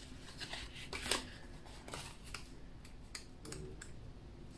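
Pages of a paper sticker book being leafed through by hand: soft rustling with a few short paper flicks.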